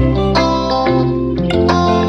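Background instrumental music with plucked guitar and sustained chords.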